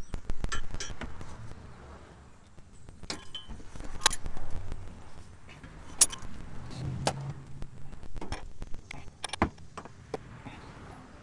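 Hand tool prying and scraping at a car's exhaust hanger to work an old rubber exhaust mount off: irregular sharp metal clicks and knocks with scraping and rustling between them.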